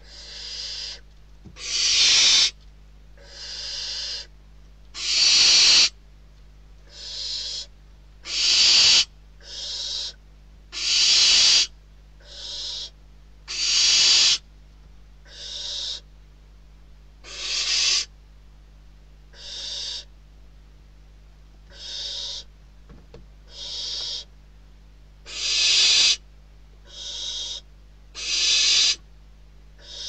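Barn owl chicks giving their hissing, snore-like food-begging calls, repeated about once every one and a half seconds, some calls louder and some softer.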